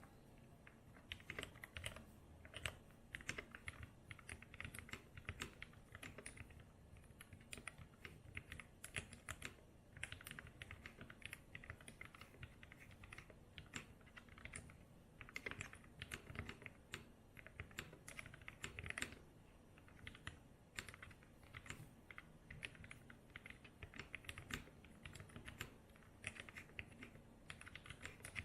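Typing on a mechanical keyboard with a brass TX60 case, vintage Cherry MX Black linear switches lubed with Krytox 107, and GMK keycaps. Rapid keystrokes come in runs, broken by short pauses.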